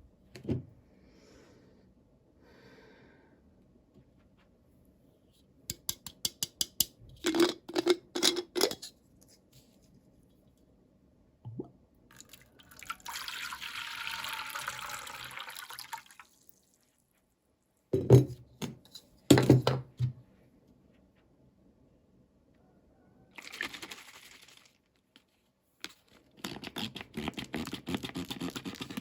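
Small plastic toys and packaging being handled: a quick run of clicks, taps and knocks, a hiss lasting about three seconds, a few sharp knocks that are the loudest sounds, and rustling near the end.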